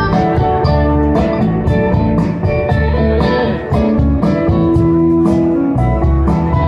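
Live rock band playing amplified through a festival PA: electric guitars and bass over a steady drum beat.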